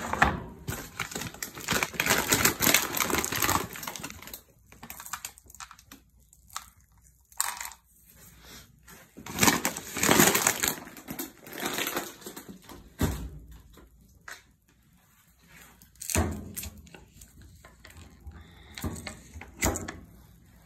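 Cat food being served: rustling and crinkling of a food bag with food shaken into a plastic feeding dish, in two bursts, at the start and again about ten seconds in. A few sharp knocks follow later.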